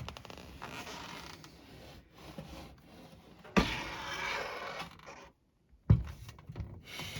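Handling noise: scraping and rustling with two sharp knocks, about three and a half and six seconds in.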